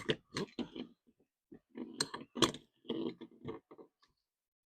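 Irregular clicks and knocks of an RV door lock's parts being handled and fitted together, in short clusters with brief pauses between.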